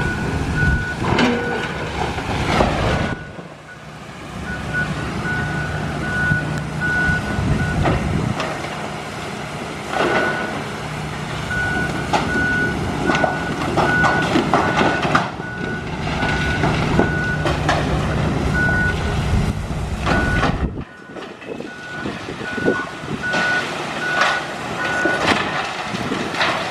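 Backup alarm of heavy demolition equipment beeping evenly, about one and a half beeps a second, over a machine engine running and the clanks and crunches of debris being broken and moved.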